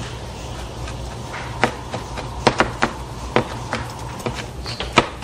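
Kitchen utensils and cookware being handled: scattered light clicks and taps, about eight of them, over a steady low hum.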